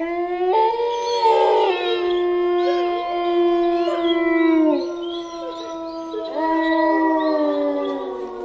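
Several dogs howling together in long, drawn-out, overlapping howls that cut in suddenly, sliding down in pitch at the ends. The howling dips briefly about halfway through and swells again.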